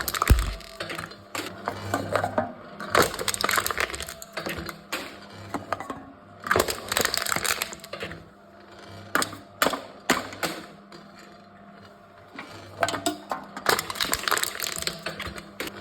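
Aluminium cans being crushed by a can-crushing machine: repeated bursts of crinkling, crunching metal with sharp crackles and clicks, about every two seconds.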